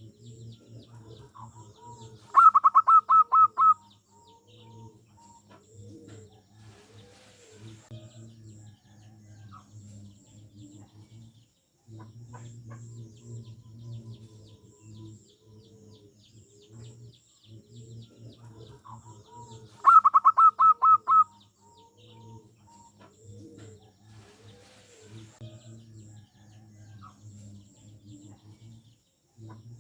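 Zebra doves (perkutut) cooing in a steady run of soft, repeated low notes. Twice, about 17 seconds apart, a loud burst of about eight rapid high notes stands out over the cooing.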